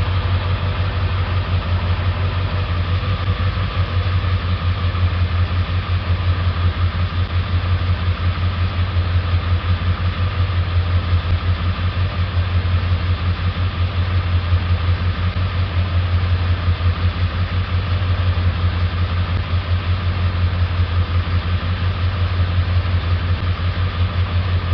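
Warmed-up 7.3 Power Stroke V8 turbo-diesel idling steadily with an even, pulsing throb during a cylinder contribution test, just after a failed injector was replaced; air is still left in its fuel system.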